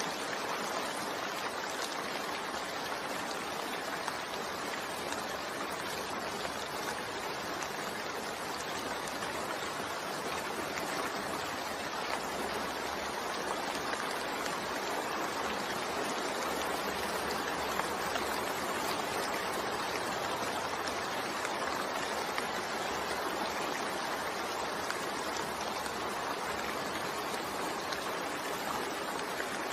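Steady rain falling, a constant even hiss with no breaks or single drops standing out.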